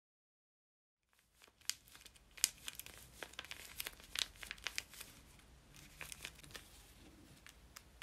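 Tape-covered paper squishies squeezed in the hands, giving faint, irregular crinkling and crackling. It starts about a second and a half in, after a moment of silence.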